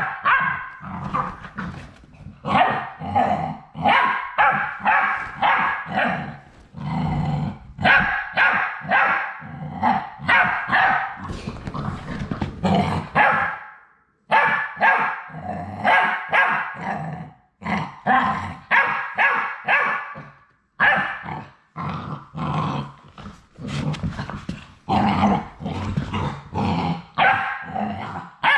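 Labrador retriever puppies barking and growling in play: a rapid run of short barks and growls, broken by a few brief pauses.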